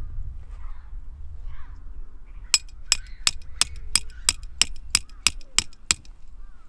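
A hammer striking a metal stake being driven into the ground: about eleven sharp metallic clinks, roughly three a second, starting a couple of seconds in. Low wind rumble on the microphone underneath.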